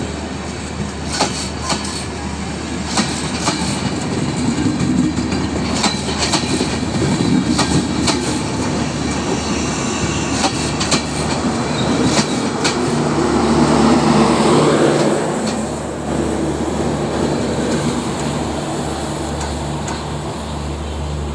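Bangladesh Railway intercity passenger coaches rolling past close by: steady wheel-on-rail rumble with the clickety-clack of wheels striking rail joints, and a steady low hum underneath. The rumble swells a little past the middle, then eases off as the end of the train passes.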